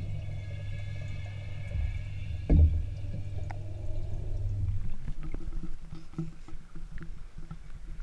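Steady low hum and water noise heard through a camera submerged in an aquaponics fish tank, with one knock about two and a half seconds in. The hum stops about five seconds in, giving way to scattered clicks and handling noise.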